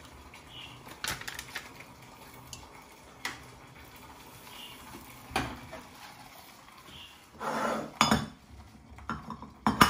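Scattered clinks and knocks of a stainless steel mixing bowl and utensils on a kitchen countertop, with a short scraping sound about three quarters of the way through, as gelatin sheets are soaked in water.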